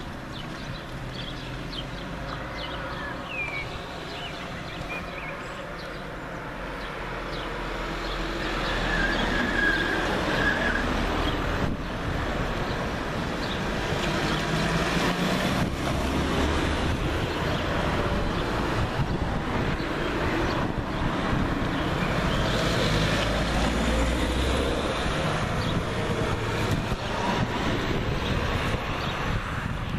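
Outdoor roadside noise: road traffic on a country road, with wind rumbling on the microphone. It gets louder about a quarter of the way in and stays up.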